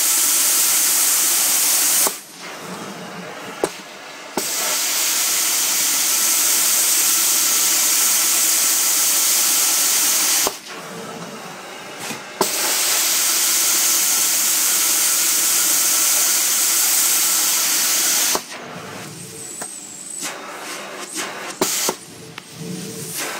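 Truck-mounted steam-cleaning carpet wand working: a loud, steady hiss of spray and vacuum suction as the wand head is drawn across the carpet. The hiss drops away three times for a couple of seconds or more, with a few sharp clicks around those gaps.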